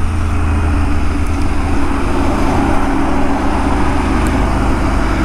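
Motorcycle engine running at a steady cruise, with wind and road noise as heard from the rider's seat.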